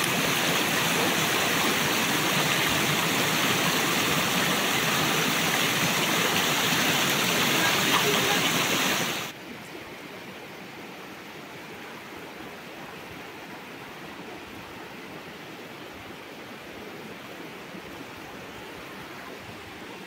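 Shallow stream rushing over stones, loud and close at first, then cutting abruptly about nine seconds in to a quieter, steady flow.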